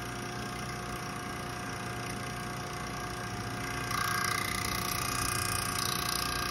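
Campbell Hausfeld AL2305 airless paint sprayer's pump motor running steadily on the prime setting while drawing no suction, a sign of the pump not building pressure. About four seconds in, a whistling hiss joins as the pressure is turned down and excess is let off through the vent.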